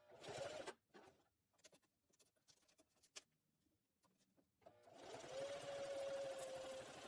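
Electric sewing machine starting up about five seconds in and running steadily with a steady motor hum, stitching Velcro onto a fabric strap. Before that there is a brief burst of sound at the very start, then only faint scattered clicks.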